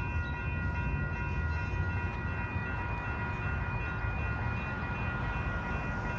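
Railroad crossing electronic bells ringing continuously as several steady high tones, over a low rumble.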